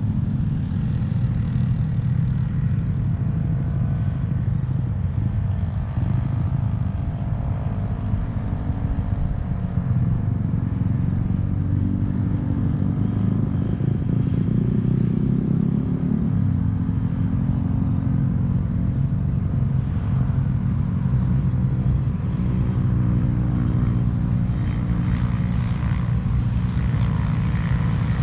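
Wind buffeting the camera microphone: a steady, gusting low rumble.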